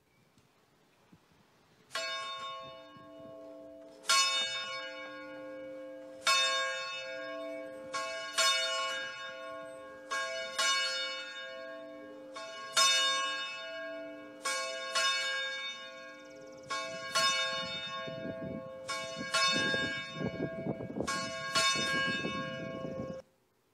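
A single church bell tolling, about a dozen strokes roughly two seconds apart, each one ringing on into the next. Near the end some strokes come in quick pairs over a low rumble, and the ringing cuts off abruptly.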